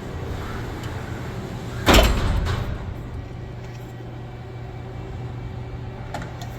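Sliding enclosure door of a heavy CNC lathe being closed, banging shut about two seconds in, over the machine's steady hum.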